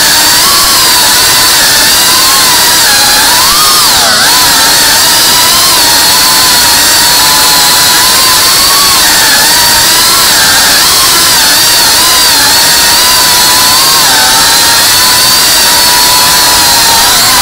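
Tiny whoop FPV micro-drone's motors and ducted propellers whining loudly, the pitch wavering up and down as the throttle changes.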